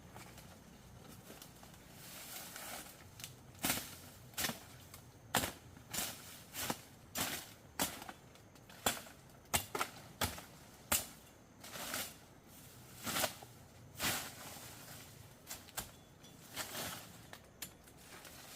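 A series of sharp knocks, irregular at about one to two a second, starting a few seconds in.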